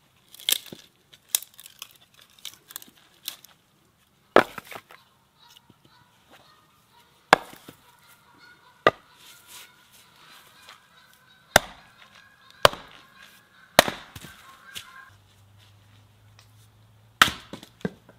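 An axe splitting firewood on a chopping block: a series of sharp strikes one to three seconds apart as the blade bites and the log halves crack apart, with lighter knocks of wood being set on the block in between.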